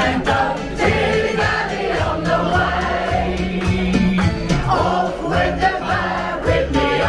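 A group singing along in chorus to pop music with a steady beat, a woman's voice leading through a microphone.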